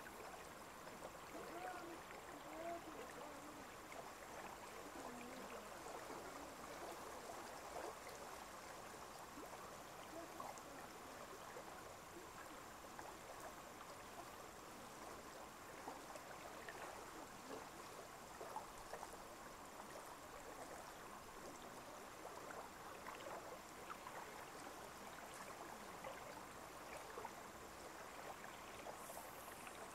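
Faint lake water lapping and trickling, steady throughout, with many small splashy ticks.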